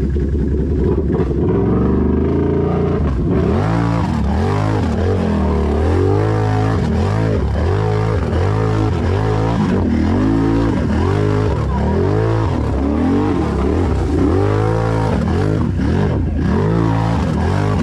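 Can-Am Renegade XMR 1000's V-twin engine, fitted with an aftermarket megaphone exhaust, running fairly steadily at first. It is then revved up and down over and over, a little more than once a second.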